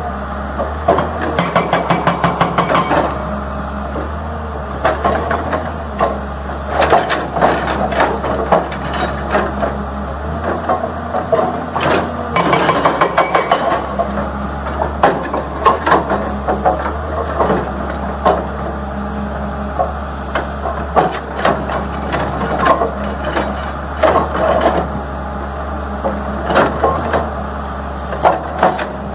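Hydraulic rock breaker on an L&T-Komatsu PC200 excavator hammering its chisel into boulders. Runs of rapid blows on stone come and go, with the longest runs near the start and again a little before halfway. The excavator's diesel engine runs steadily underneath.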